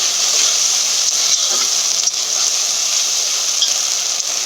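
Onions with freshly added garlic and ginger paste sizzling steadily in hot oil and ghee in a pan, at the stage of frying off the raw smell of the pastes.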